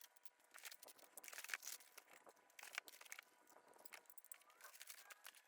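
Near silence with faint scattered clicks and crackles.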